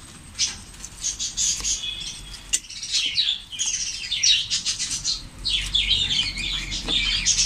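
Small birds chirping busily, many short high calls that rise and fall, with a few sharp clicks of a knife working chicken meat on a wooden chopping board.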